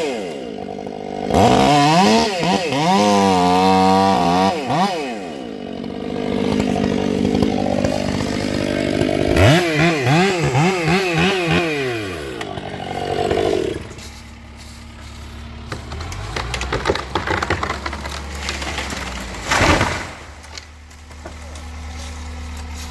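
Two-stroke chainsaw revving up and down repeatedly as it cuts, then dropping to a steady idle about 14 seconds in. A loud short burst of noise comes near the end.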